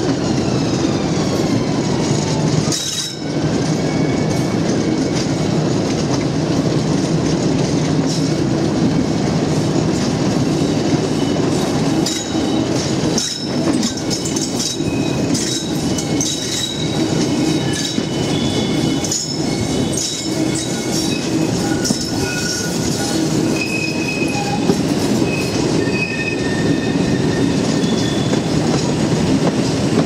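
Double-headed Class 50 diesel locomotives with English Electric 16-cylinder engines working under power, a steady heavy engine drone. High squealing tones come and go over it from the wheels on the curve, with a few clicks from the rail joints.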